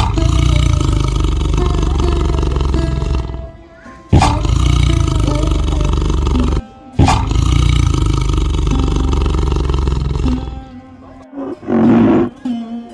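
A big cat, such as a tiger, roaring loudly in three long roars, each starting abruptly, with music playing underneath.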